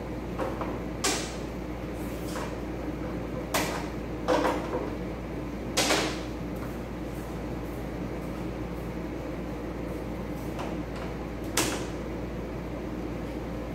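About five short, sharp knocks and clunks of hands and tools working on the parked car, spread unevenly, over a steady low hum. The engine is not running.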